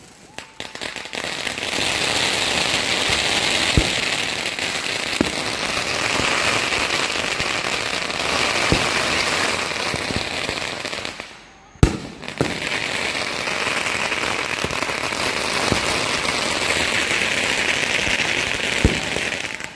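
Fireworks going off: long runs of dense crackling from crackling-star effects, with scattered bangs. It drops away briefly about halfway through, a single loud bang follows, and the crackling takes up again.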